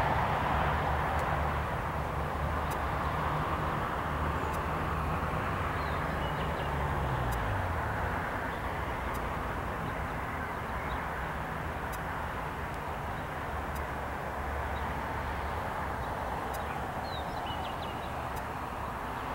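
Airbus A320's IAE V2500 jet engines, heard at a distance during the landing rollout. A steady jet roar eases off, and a low engine tone falls in pitch and dies away about seven seconds in as the engines spool down.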